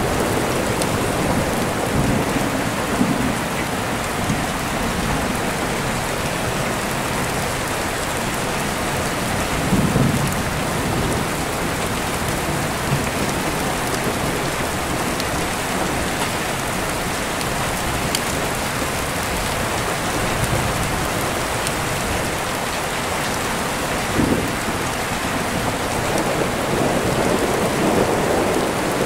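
Steady rain with deep rolling thunder, heard through an open window. The thunder rumbles up several times and is loudest about ten seconds in.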